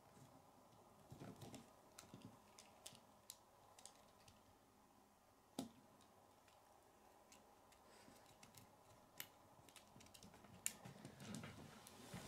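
Faint, scattered clicks of K'nex plastic pieces being handled and pressed together as clips and the shell are fitted onto a toy truck's frame, with one slightly louder click about halfway through.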